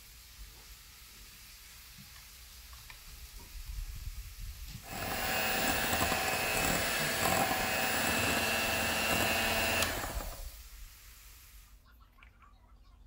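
Electric hand mixer beating cream cheese frosting in a glass bowl: a steady motor whine that starts about five seconds in, runs for about five seconds and then winds down.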